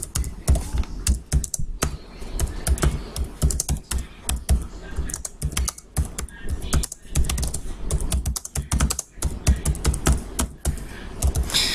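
Typing on a computer keyboard: a quick, irregular run of key clicks with a few short pauses.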